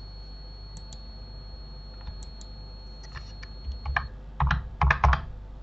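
Keystrokes on a computer keyboard: a few scattered light clicks at first, then a quick flurry of louder key presses from about three and a half seconds in.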